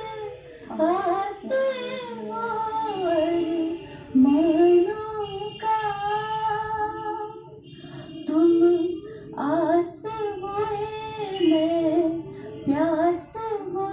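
A woman singing a Hindi poem (geet) at a microphone, in several phrases of long, wavering held notes with short breaks between them, heard through a television's speaker.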